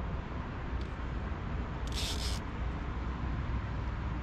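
Steady low rumble of wind on the microphone, with a short burst of hiss about two seconds in.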